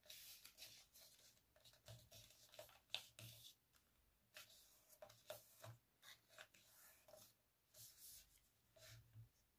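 Faint rustling and crinkling of a sheet of A4 paper being folded and creased by hand, in a series of short scrapes with a sharper crackle about three seconds in.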